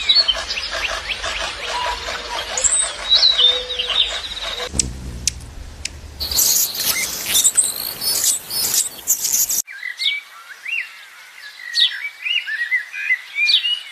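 Birds chirping with many short, quick chirps. The sound changes abruptly twice, as at cuts: the middle stretch carries a low rumble and noisy hiss under the chirps, and the last stretch has clear, separate chirps.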